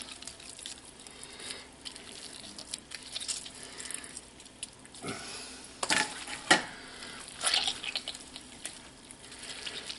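Blanched spinach being squeezed by hand in a metal colander: wet squelching and water dripping and splashing through into the pot below, uneven, with a few sharper splats between about five and seven and a half seconds in.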